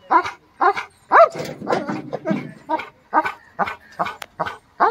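American Bully dog barking repeatedly, about two barks a second.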